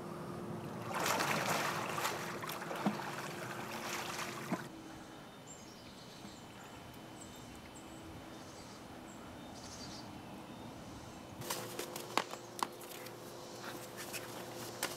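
Pool water splashing as a person wades and moves in a swimming pool, cutting off abruptly about four and a half seconds in. A quieter stretch with faint high chirps follows, then scattered sharp clicks and taps near the end.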